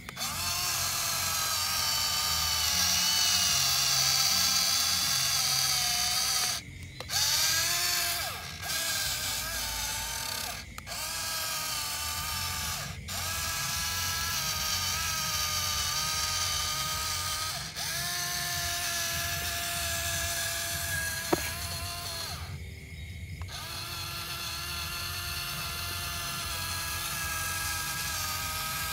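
Small electric gear motor of a toy RC tractor whining as it pushes soil with a front blade, its pitch dipping and rising with the load and cutting out briefly several times.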